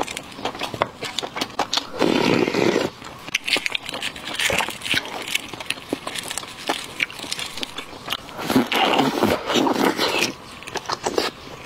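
Wet squelching and small crackles from gloved fingers squeezing and peeling a sauce-soaked five-spice braised egg, with two louder noisy stretches, then eating sounds as the egg goes into the mouth near the end.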